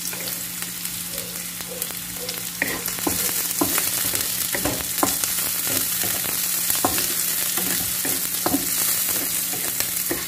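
Sliced onion and minced garlic sizzling in hot oil in a wok. From about two and a half seconds in, a wooden spatula scrapes and knocks against the pan in short, irregular strokes as they are stirred.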